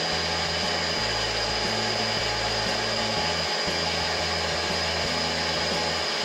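Optical lens edging machine running with a steady high whine as it cuts and drills a 1.74 high-index lens for a rimless frame.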